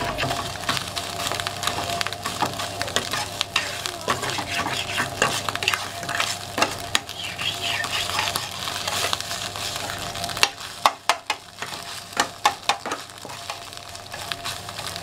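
Metal spoon scraping and clinking against a steel frying pan while beaten eggs scramble and sizzle in hot oil. A run of sharper, louder clinks comes toward the end.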